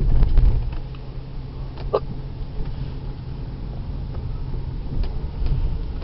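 A man hiccuping: one short, sharp hic about two seconds in, over a steady low rumble.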